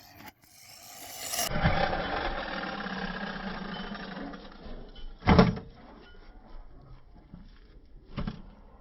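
Electric RC car (BSD Onslaught basher) accelerating, its motor and drivetrain whining up and then fading. A loud thump comes about five seconds in and a lighter one near the end. The drivetrain sound is one the owner takes for a bent prop shaft.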